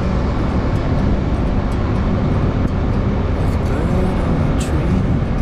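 Wind rushing over the microphone on a moving motorcycle, with the KTM Duke 390's single-cylinder engine running underneath at road speed. A short sharp click about four and a half seconds in.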